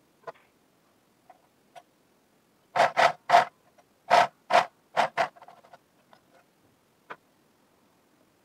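About seven short scraping rustles in quick succession through the middle: knit sock fabric being handled, shifted and smoothed flat by hand. A few faint ticks come before and after.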